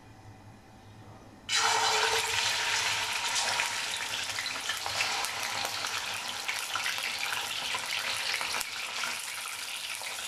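Raw chicken pieces going into hot oil in a karahi: the oil bursts into a loud sizzle about a second and a half in and keeps frying, the sizzle slowly easing off.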